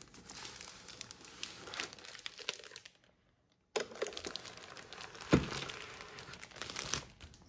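Thin plastic protective sleeve crinkling and rustling as it is pulled off a glass bathroom scale, with a short break about three seconds in. A single sharp knock a little after five seconds is the loudest sound.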